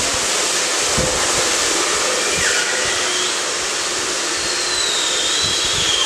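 Hair dryer running at full blast, its nozzle pushed into a polythene bag to burn it: a steady rushing of air, with a faint high whine that sinks slightly late on and a few low thumps.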